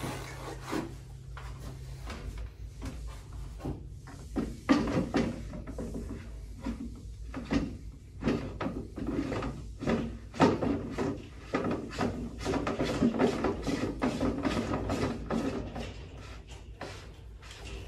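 A DI filter sump being screwed by hand onto its housing on a water-filter cart: a run of scraping, rubbing and small knocks and clicks as the sump is fitted and turned, busiest in the middle.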